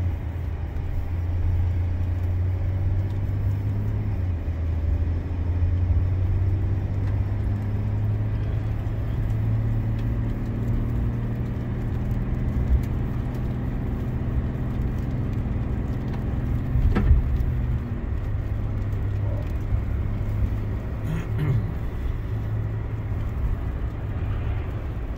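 Steady low drone of a car's engine and tyres heard from inside the cabin while driving, its pitch drifting slightly with speed. A single sharp knock comes about two-thirds of the way through.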